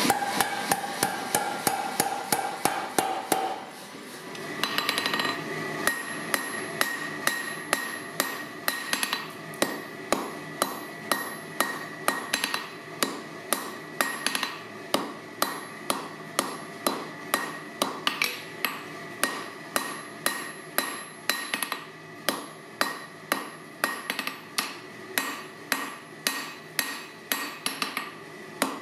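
A mechanical power hammer pounds red-hot steel in quick blows for the first few seconds. From about five seconds in, a hand hammer strikes a hot steel bar on the anvil about twice a second, each blow ringing, while the bar is drawn out into a slot punch.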